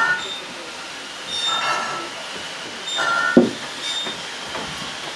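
Short high-pitched squealing tones from found-object instruments, each lasting under half a second and recurring about every second and a half, with one sharp knock a little over three seconds in.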